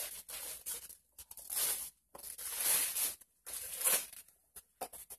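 Gift-wrapping paper being torn off a boxed present in a series of about five quick rips, roughly one a second.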